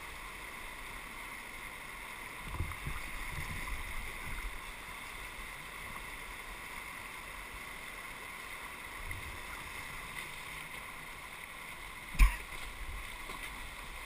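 Steady rush of river whitewater around an inflatable kayak running a rapid. There are a few low bumps about three seconds in and a single sharp knock near the end.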